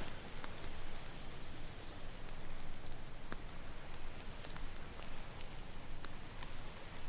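Campfire crackling with scattered sharp pops, over a steady wash of ocean surf.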